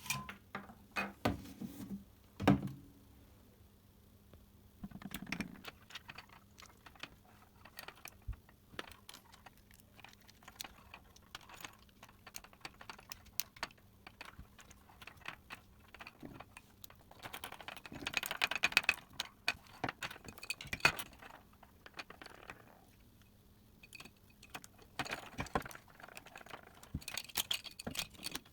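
Small clicks, taps and rattles of the plastic housing parts, screws and hand tools of a Makita ML807 work light being handled during its repair, with one louder knock about two seconds in and a stretch of rustling around two-thirds of the way through.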